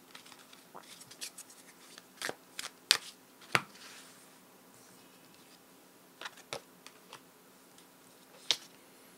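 Tarot cards being turned over and laid out by hand: scattered sharp card snaps and slaps, several close together a few seconds in and a few more later, with soft card handling between.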